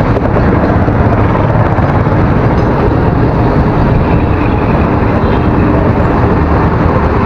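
Motorcycle ridden slowly along a street, heard from the rider's own camera: a steady mix of engine, wind and traffic noise with no distinct events.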